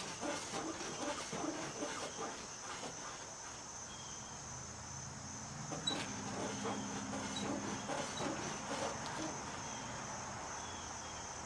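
Steady chirring of crickets, with a faint low hum and a few soft clicks partway through.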